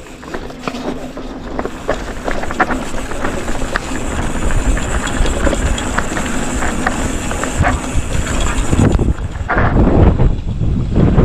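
Mountain bike descending a steep dirt trail: the tyres drag and skid over loose ground, with many sharp clicks and rattles from the bike over rocks. It gets louder toward the end.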